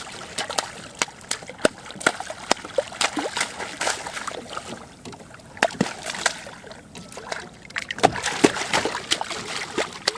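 Water splashing and sloshing around a kayak, with many irregular small sharp splashes and knocks.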